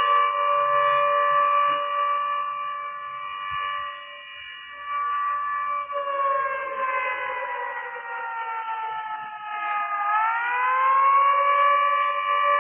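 Siren sounding for the UK government alert test: a loud steady wail that sags slowly lower in pitch for about four seconds past the middle, then swings quickly back up to its first pitch.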